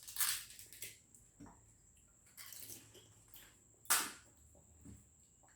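Someone eating fuchka (pani puri) fast: a few short, wet crunches and slurps as the crisp shells filled with spiced water are bitten. The loudest comes near four seconds, with quiet pauses between.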